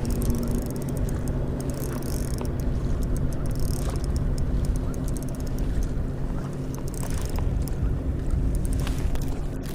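A motor hums steadily and low throughout, with faint scattered clicks over it.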